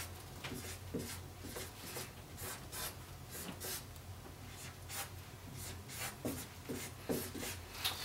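Dry-erase marker squeaking and scratching on a whiteboard as a figure is drawn, in a series of short, irregular strokes.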